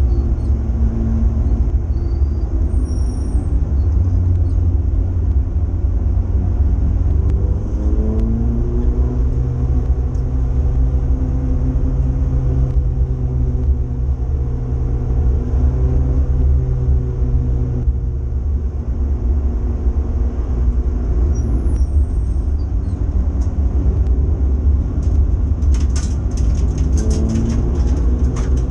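Renault Clio 182's 2.0-litre four-cylinder engine heard from inside the cabin under race load, its pitch climbing with the revs twice and holding level in between. A short run of sharp clicks near the end.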